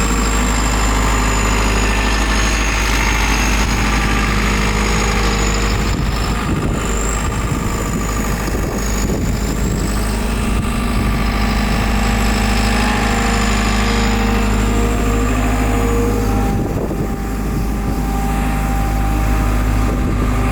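2014 JCB JS175W wheeled excavator's diesel engine idling steadily, with a high whine above it that wavers slightly in pitch.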